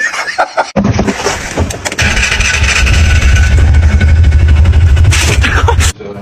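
An engine running loudly with a heavy low rumble, cutting off suddenly near the end.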